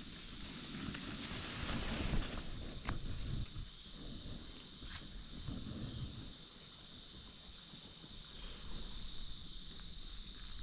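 Wind buffeting the microphone and rustling in forest undergrowth, with a few small snaps. Once the rustling eases after about two seconds, a steady high-pitched drone can be heard underneath.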